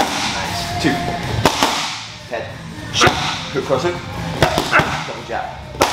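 Gloved punches smacking into hand-held focus mitts: about six sharp slaps spaced unevenly, two of them in quick succession about a second and a half in.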